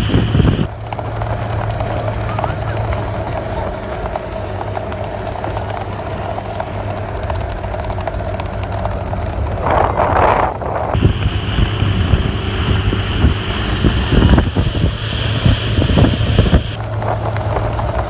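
Motorboat engine running at speed with a steady hum, mixed with wind buffeting the microphone and the rush of the churning wake. A voice cuts in briefly about ten seconds in.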